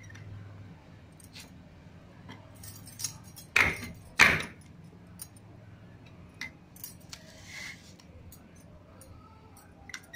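Iron blade of a hand-lever mango cutter chopping through raw green mangoes: two sharp chops less than a second apart, a few seconds in. Bangles clink and small knocks sound as the fruit is handled.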